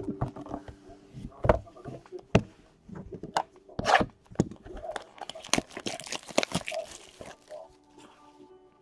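A Futera Unique card pack being handled and pulled from its cardboard display box: a string of sharp taps and clicks of card stock, then about two seconds of crinkling and tearing past the middle as its wrapper is opened.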